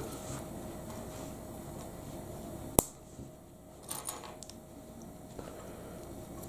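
Small plastic clicks of LEGO minifigure parts being pressed together by hand: one sharp click about three seconds in, then a few fainter clicks a second later.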